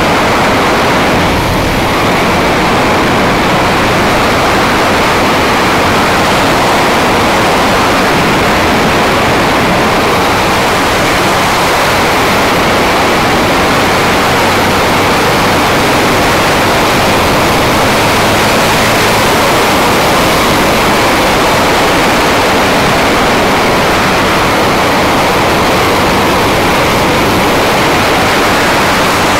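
Steady rush of wind on the microphone of a camera on a moving Honda CBR250R motorcycle, with the bike's single-cylinder engine running at a steady cruise faintly underneath.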